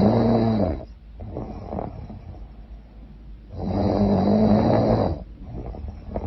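A woman snoring loudly in sleep: two loud snores about three and a half seconds apart, each followed by a softer breathy sound.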